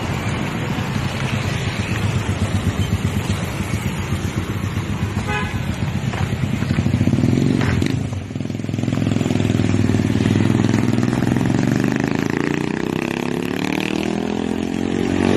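City street traffic: motorcycle and car engines running and passing, with a short horn toot about five seconds in and an engine note rising as a vehicle accelerates near the end.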